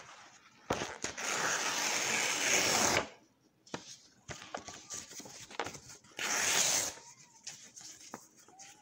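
A sheet of paper torn in two in one long rip of about two seconds, followed by paper crinkling and rustling as the pieces are handled. Just after six seconds in comes a second, shorter rip through the stacked halves.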